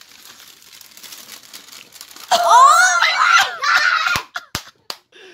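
Paper wrapping in a shoebox rustling and crinkling as a hand pulls it back. About two seconds in, a loud voice cries out, its pitch sliding up and down, followed by two sharp clicks near the end.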